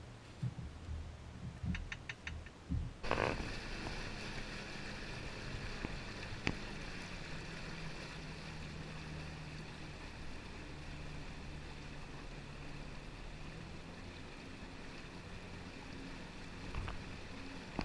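Small aluminum boat under way on a lake: a steady motor hum with water rushing along the hull, cutting in suddenly about three seconds in after a few scattered low knocks.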